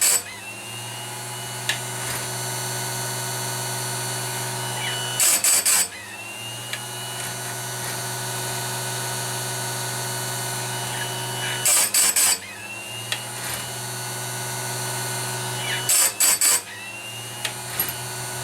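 Small electric chainsaw-chain grinder running with a steady hum, its wheel brought down onto the chain teeth in turn. Every five or six seconds comes a short burst of three or four quick, hissing grinding touches on a tooth, and the wheel's pitch climbs back after each burst.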